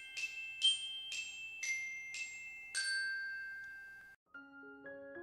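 Intro music: a tune of bright, bell-like struck notes of mallet percussion, each ringing out, closing on a long note that fades away. After a brief gap near the end, softer, lower keyboard notes begin.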